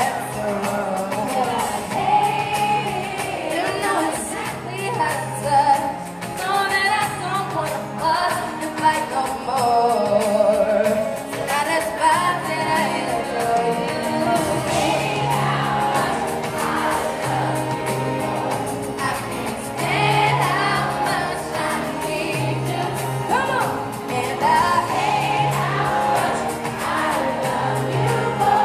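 Live pop song with female lead and backing vocals over acoustic guitars, recorded from the audience.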